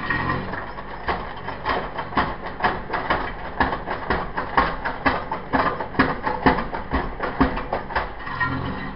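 Mini digger working, with a rapid, irregular clatter of metallic clanks and knocks, about two to four a second, over its engine running, which is heard more clearly at the start and again near the end.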